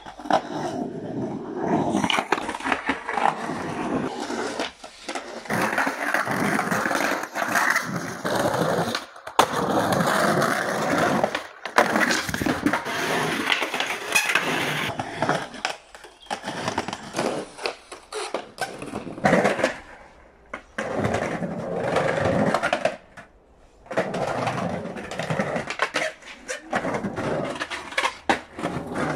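Skateboard wheels rolling and carving across a concrete bowl, with a rushing rumble that rises and falls. It is broken by sharp clacks and slaps of the board and trucks striking the concrete. The sound stops briefly several times between runs.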